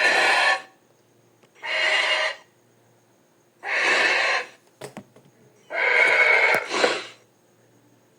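Creature sound effect: four short, breathy, rasping calls, each about half a second long, coming about every two seconds.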